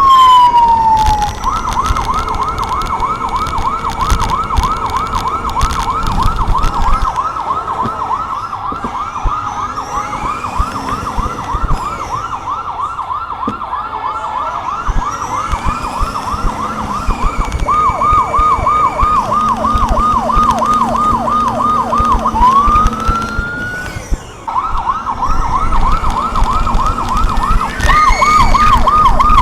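Vehicle-mounted electronic siren cycling through its tones. A falling wail at the start gives way to a rapid warble, which changes about halfway through to a choppier falling pattern. A short rising wail follows, then the fast warble comes back. Vehicle road and engine rumble runs underneath.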